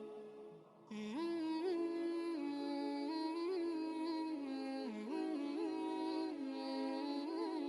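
Background music: a drawn-out, ornamented melodic line over a steady drone, coming in about a second in after a brief dip.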